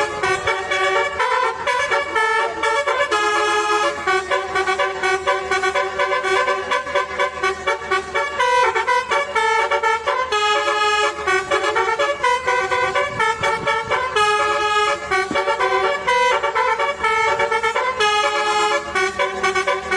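Bus telolet horn, a multi-tone horn, playing a quick tune of short stepped notes with several pitches sounding together.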